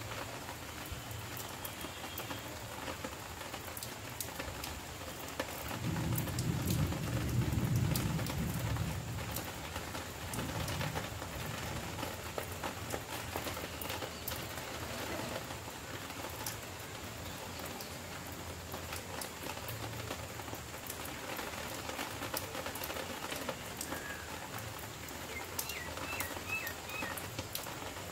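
Light rain falling steadily with scattered drop ticks, in its last stage, almost stopping. A low rumble swells for a few seconds about six seconds in, and a few short high chirps come near the end.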